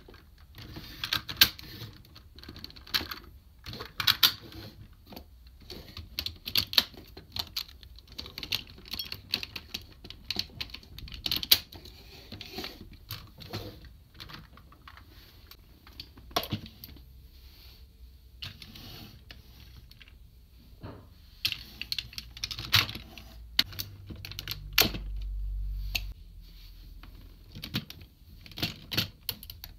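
Hard plastic toy-robot parts clicking, snapping and rattling as limb pieces are pulled off and pushed onto the joints of combining DX robot toys, in many sharp irregular clicks. A low rumble lasts a couple of seconds about three-quarters of the way through.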